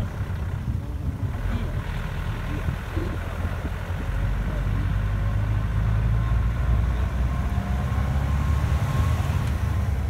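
Vehicle driving on a rough gravel road: a steady low rumble of engine and tyres, growing louder about four seconds in.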